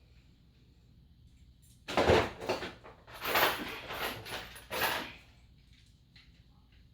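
Handling noise: a run of about five scraping and knocking strokes over roughly three seconds, with no drill motor running.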